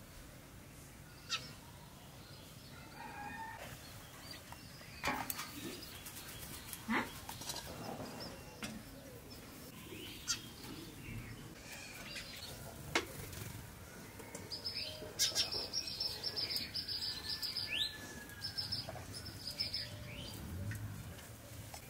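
Small birds chirping in quick repeated high notes, thickest from about two-thirds of the way in, over scattered sharp clicks and taps.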